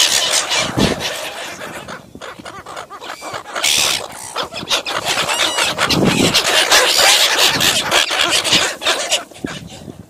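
A flock of silver gulls squawking and squealing over food, many harsh calls overlapping.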